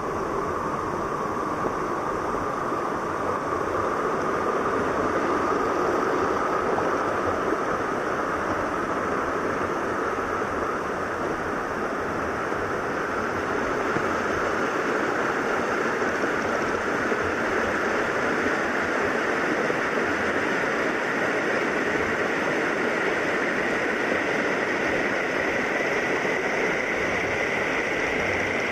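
Rocky mountain stream running over small cascades between boulders: a steady rush of water that grows slightly brighter toward the end.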